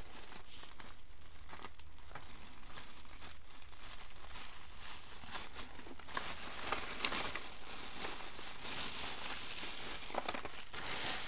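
Crinkling and rustling of packaging being handled and opened by hand, a continuous run of small crackles.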